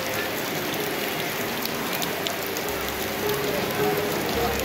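Steady rushing and splashing of river water, with faint voices murmuring in the background.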